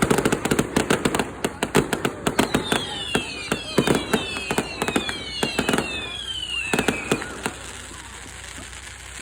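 Fireworks crackling in rapid pops, with several whistling fireworks gliding down in pitch about halfway through. The crackling thins out and dies down near the end.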